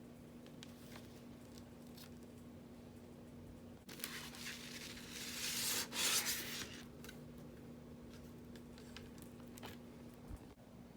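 Hands handling a vinyl record's paper and cardboard sleeves, with scattered soft rubs and ticks and a louder rustling, sliding stretch from about four to nearly seven seconds in. A steady low hum runs underneath.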